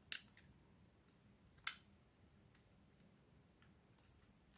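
Two short clicks of a computer mouse, about a second and a half apart, against near silence.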